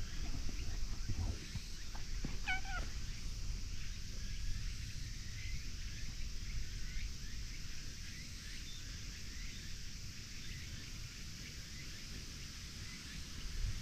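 Orange tabby cat giving one short meow about two seconds in, over a steady low rumble. Faint high chirps come and go afterwards.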